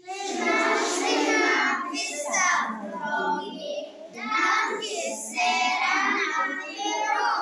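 Young children singing a short rhyme, in phrases with brief breaks between them.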